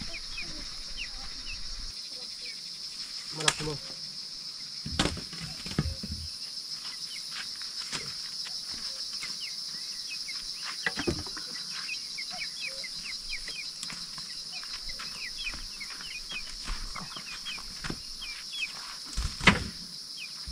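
Insects trilling steadily in a high-pitched chorus, with scattered short chirps over it. Several sharp knocks or rustles stand out, the loudest near the end.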